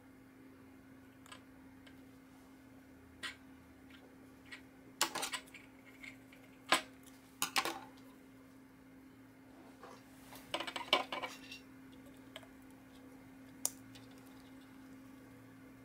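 Small metal objects being handled and set down on a hard tabletop: the tambour's metal capsule, scissors and a pocket knife. Scattered light clicks and clinks, with busier clusters of taps about five, seven and eleven seconds in.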